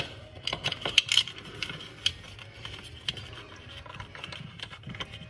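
Scattered light clicks and taps of plastic parts being handled: a plastic LED light track and its wire connectors are fitted and pressed up under a kitchen cabinet. The sharpest clicks come near the start and about one, two and three seconds in.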